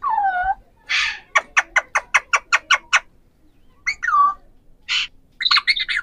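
Alexandrine parakeets calling. There are a few falling squawks and harsh screeches, and between about one and three seconds in, a quick run of about ten sharp chirps at some six a second.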